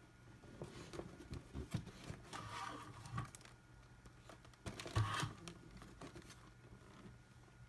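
Hands handling a cardboard model-kit box: fingers slide and rub on the card with small taps and clicks. There are two short scraping stretches, and the second, about five seconds in, is the loudest, with a light knock.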